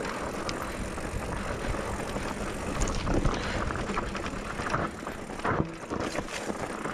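Mountain bike rolling down a steep, loose, rocky dirt trail: a steady rumble of tyres on gravel, with the bike rattling and a few louder clatters over rocks.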